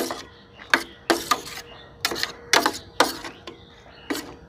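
Steel spoon clinking and scraping against a stainless steel bowl while fish pieces are stirred through a thick masala marinade. The sharp, briefly ringing clinks come irregularly, about two a second.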